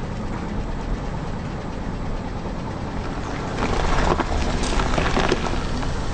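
Car engine and tyres rumbling low and steady. From a little past halfway, an object crackles and crunches under a tyre for about two seconds.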